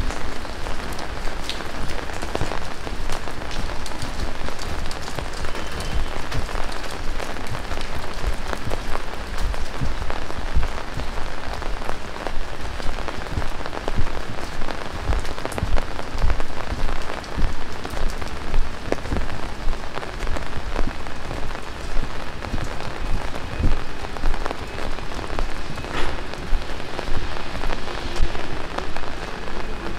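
Heavy rain falling steadily, with many close individual drops landing as short clicks and low thumps over the dense hiss of the downpour.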